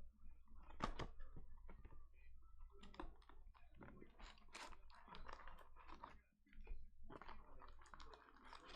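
Plastic and foil wrapping crinkling and tearing as a sealed box of Mosaic basketball cards and its packs are opened by hand: an irregular run of crackles, with a few sharper snaps about a second in and near the middle.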